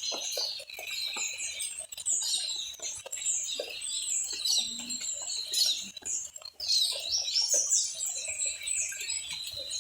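A chorus of many small songbirds chirping and twittering at once, in dense overlapping calls without pause.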